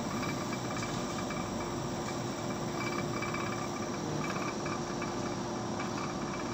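Laboratory stirrer motor running steadily while it stirs a caffeine sample dissolving in water: a constant hum over a steady hiss.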